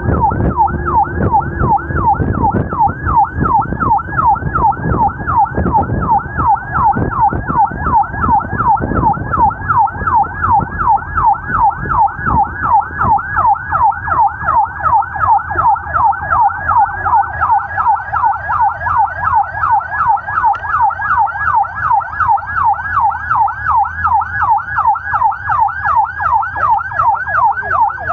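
Emergency vehicle siren wailing in a fast yelp, its pitch sweeping up and down about three times a second without a break. Road and engine rumble sits underneath, heavier for the first third.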